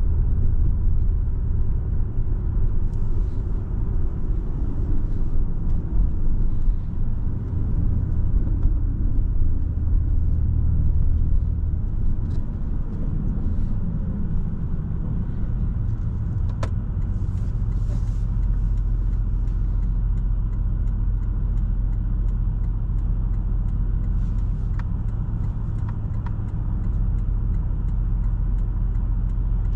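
Porsche 718 Boxster S's turbocharged flat-four engine running while the car drives, over tyre and road rumble. It is a little louder for the first dozen seconds, then settles into an even drone. There is a single sharp click about two-thirds of the way through.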